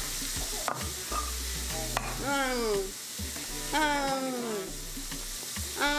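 Food sizzling as it fries in a pan, a steady hiss, with music playing over it: a stepping bass line and three long falling slides in pitch.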